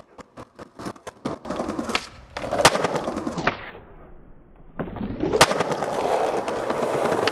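Skateboard on pavement: a run of quick clicks, then wheels rolling, with a sharp pop about two and a half seconds in. The rolling drops away while the board is in the air, then a loud landing clack comes about five and a half seconds in, followed by steady rolling.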